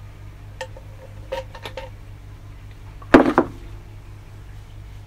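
Small metal parts clinking as a camshaft bearing cap is handled and oiled, a few light clicks with a faint ring, then a louder clatter of several quick knocks about three seconds in.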